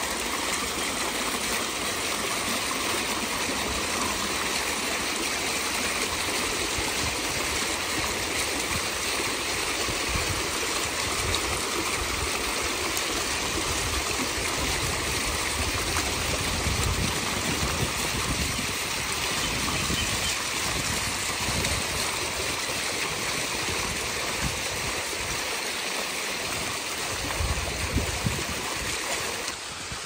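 Water splashing steadily from the small bubbler jets of a tiered, tiled fountain and falling back into its basins, with a low rumble now and then.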